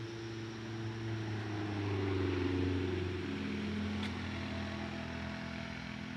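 A vehicle's engine running as it passes, growing louder to a peak about halfway through and then easing off, its pitch falling slightly as it goes.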